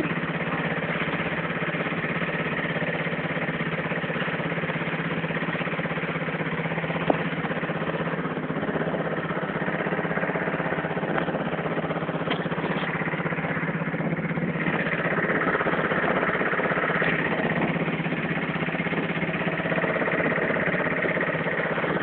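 Small wooden motorboat's engine running steadily underway, a constant even hum. One brief knock sounds about seven seconds in.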